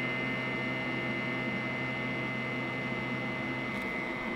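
Cordless-drill battery charger at work: a steady electrical hum and hiss with a thin high whine, and a low hum note that drops out near the end.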